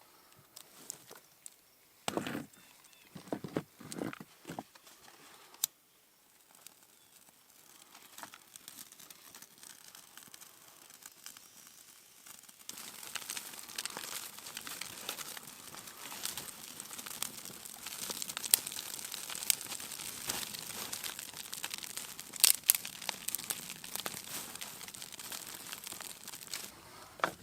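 Crinkling and rustling of bags being handled, continuous from about halfway through and dense with small crackles. A few soft knocks come in the first few seconds.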